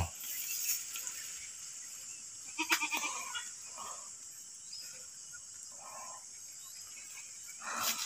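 Goat bleating faintly in short calls, the clearest about three seconds in and a softer one near six seconds.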